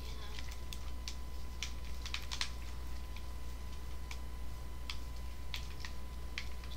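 Scattered light clicks and ticks from plastic drink bottles being handled and sipped from, bunched together about two seconds in, over a steady low hum.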